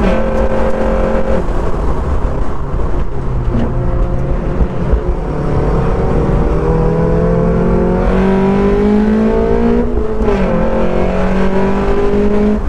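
Mazda MX-5 NC's four-cylinder engine on individual throttle bodies, heard from inside the open cockpit, driven hard on track. A gear change at the very start, then revs fall and hold low for a couple of seconds before climbing steadily. A quick upshift comes about ten seconds in, then the revs climb again.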